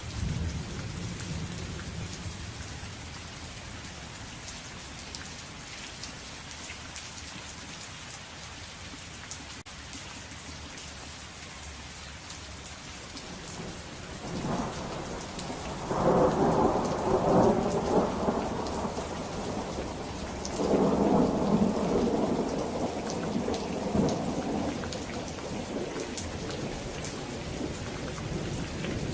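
Steady rain falling, with rolling thunder: a long rumble builds about halfway through, and a second one follows a few seconds later before fading back under the rain.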